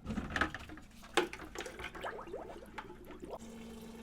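Water gurgling and splashing as plain water is run through a tankless water heater's flush hoses after descaling. About three and a half seconds in, a steady low hum sets in.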